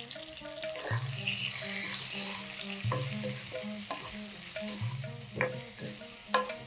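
Stuffed small brinjals frying and sizzling in hot oil in a pan, stirred and turned with a wooden spatula, with a few knocks of the spatula against the pan.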